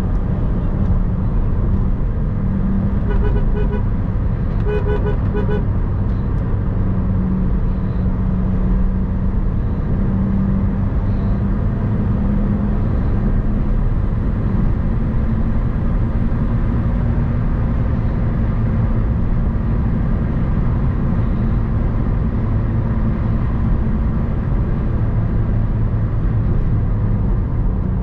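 Chevrolet Cruze's diesel engine and tyre noise droning steadily inside the cabin at highway speed. About three seconds in, a car horn sounds twice in short blasts about a second apart.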